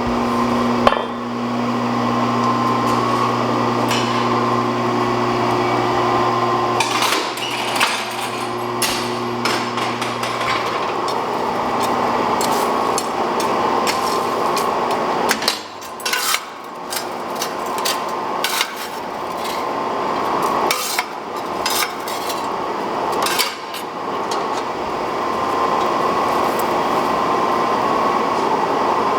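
Little Giant 250 mechanical power hammer striking hot steel in irregular runs of blows as a bar is drawn down to square, over a steady rushing noise. A motor hum sounds through the first ten seconds or so, then fades.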